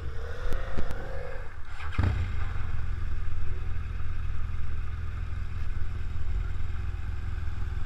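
BMW R1200GS Adventure motorcycles idling, low and steady, with a single knock about two seconds in.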